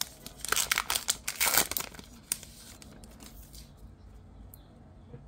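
A baseball card pack wrapper torn open and crinkled by hand, a dense crackling for about the first two seconds that then drops to faint rustling as the cards are handled.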